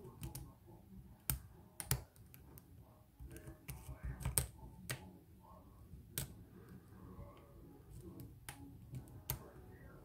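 Irregular sharp clicks and ticks of a hook pick and tension wrench working the pin stacks of a BKS oval lock cylinder.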